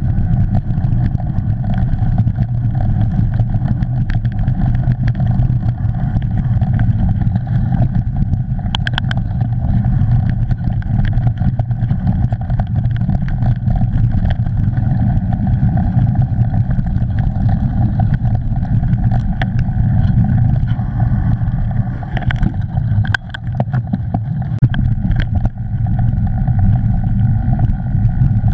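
Riding noise of a mountain bike heard from a camera mounted on the bike: a loud, steady rumble of wind buffeting and knobby tyres rolling over mud and wet leaves, with scattered rattles and knocks from bumps in the trail, several close together near the end.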